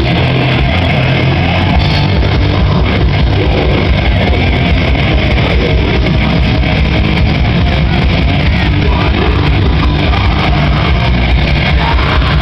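Live rock band playing loudly through a PA system, with guitar and drums, steady and unbroken.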